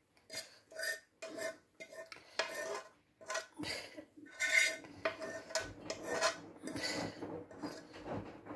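A frying pan with a utensil scraping and clinking against it and against a china plate as scrambled mushroom and egg is moved out onto the plate. A run of short scrapes and clinks with a faint ringing tone.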